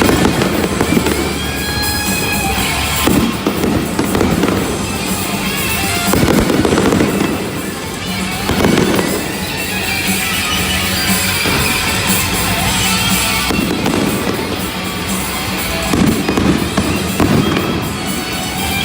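Stadium fireworks show: aerial shells bursting in repeated booms with crackling, while music plays alongside.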